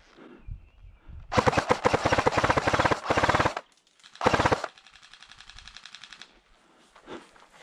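Airsoft gun firing on full auto: a loud burst of rapid, evenly spaced shots lasting about two seconds, a short burst about half a second later, then fainter rapid fire for a second and a half.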